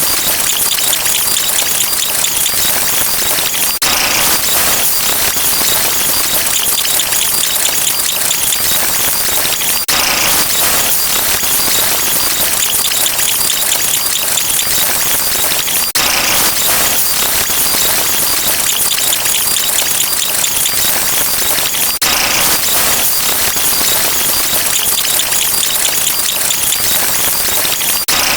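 A loud, dense wall of many sound effects layered on top of one another until they blend into a hiss-like noise. The mix changes abruptly about every six seconds.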